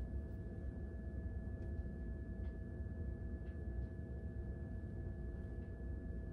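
Steady low room hum with a faint steady high whine above it, and a few faint soft ticks scattered through.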